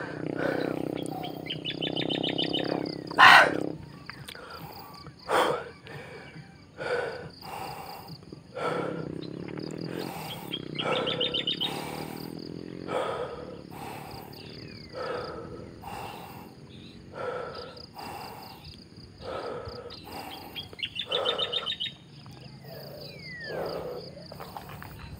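Birds calling: short calls every second or two, and a high rapid trill repeated three times, roughly ten seconds apart.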